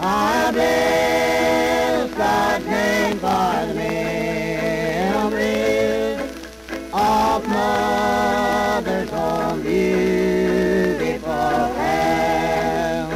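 Mountain gospel family vocal group singing long held notes in several-part harmony, played from a 1928 Victor 78 rpm shellac record, with the disc's surface hiss beneath.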